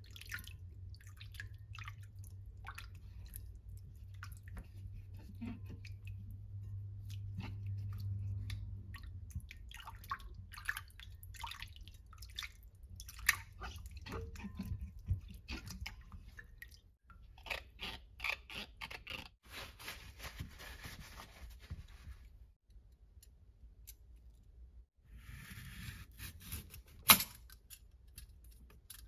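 Water splashing and dripping in a glass bowl as a cucumber is rubbed and rinsed by hand, with small wet clicks and squeaks of skin on skin. Near the end, a julienne peeler scrapes along the cucumber with one sharp click.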